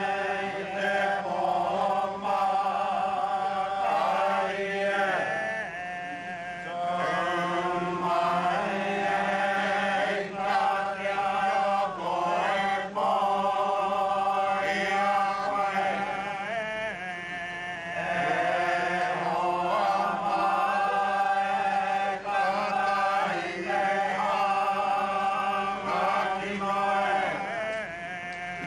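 Māori chanting: voices holding long, wavering notes in phrases with short breaks between them.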